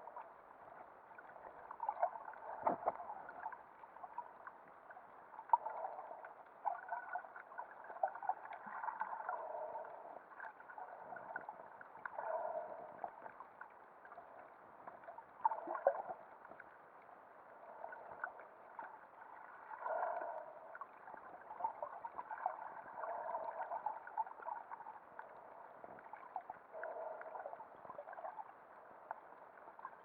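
Muffled underwater gurgling and water movement picked up by a camera submerged in a waterproof housing. It swells and fades every three to four seconds, with a few faint clicks.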